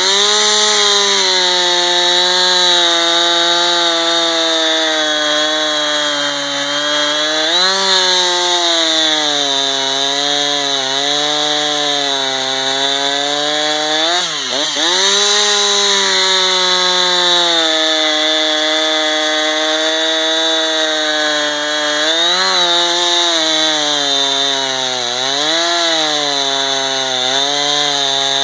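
Husqvarna 455 Rancher two-stroke chainsaw running at high revs while cutting wood, its pitch dipping briefly and recovering several times.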